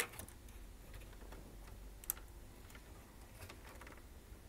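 Faint clicks and light taps of wiring and plastic parts being handled inside an opened VCR, with one click at the start and a sharper one about two seconds in.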